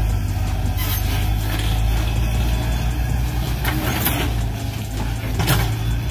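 Steady engine-like rumble of a radio-controlled excavator, with a few short noisy bursts as the bucket swings.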